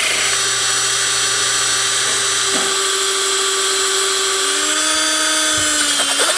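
Cordless drill boring a pin hole into the steel nose of an LS engine's crankshaft through a drill guide, a steady drill whine under load. Its pitch drops a little about five seconds in as the motor slows in the cut.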